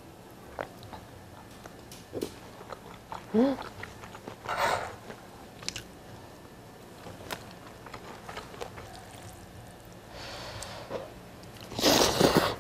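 Close-miked eating: a spoon scraping and clicking on a plate, mouthfuls of fried rice with jjajang sauce being chewed, and near the end a loud slurp from a small bowl of noodles and broth.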